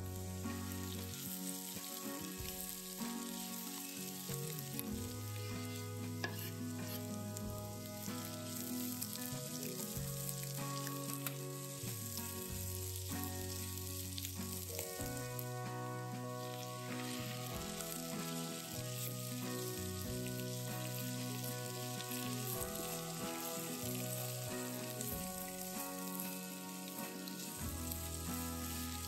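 Sliced carrots, mushrooms, onion and chopped garlic sizzling in hot oil in a frying pan while a spatula stirs them, with pieces of fried chicken thigh among them near the end. The sizzle is a steady, even hiss.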